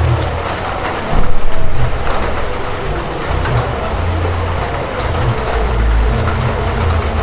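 Heavy rain pouring down in a dense, even hiss, with a deep rumble underneath that swells and fades, loudest a little over a second in.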